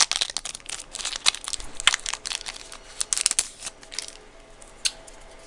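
Foil Yu-Gi-Oh booster pack wrapper crinkling and crackling as it is torn open and handled. The crackles come thick and fast and stop about four seconds in, followed by one short click.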